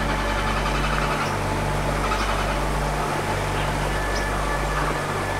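Ambient film score of low sustained bass notes that shift to a new pitch every second or two, over a steady rushing hiss.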